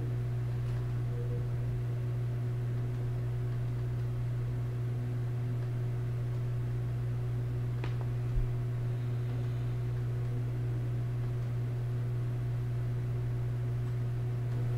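A steady low hum with a faint hiss underneath, and one faint click about eight seconds in.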